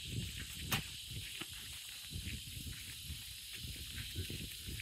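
Footsteps on a concrete path, irregular soft thuds, under a steady high outdoor hiss, with one sharp click about three quarters of a second in.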